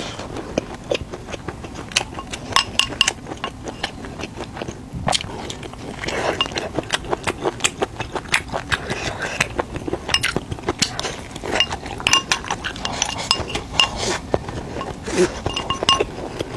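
Tableware clinking: many short, sharp clicks of utensils against ceramic dishes, some ringing briefly, scattered irregularly throughout.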